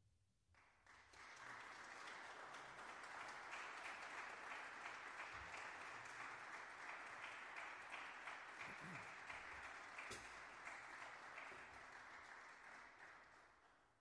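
Audience applauding at the end of a jazz piece. The clapping starts about half a second in and fades away near the end.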